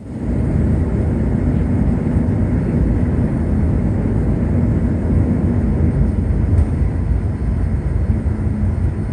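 Cabin noise inside a Boeing 787-9 airliner rolling along the runway: a steady, loud, low rumble from the engines and wheels, with a faint constant hum.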